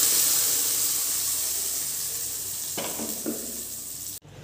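Ground onion gravy paste hitting hot tempered oil in a kadhai, sizzling loudly and slowly dying down. There are a few light knocks about three seconds in, and the sound cuts off abruptly near the end.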